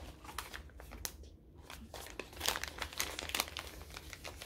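Paper bag crinkling and rustling as it is handled and opened by hand, in irregular bursts of crackles that grow busier about halfway through.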